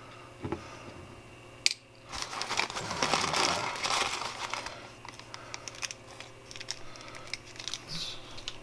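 Plastic poly mailer bag crinkling and rustling as hands dig around inside it. A single sharp click comes just under two seconds in.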